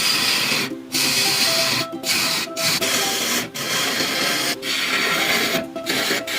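Background music over the noisy whir of a woodturning lathe at work. It is broken by brief gaps about once a second.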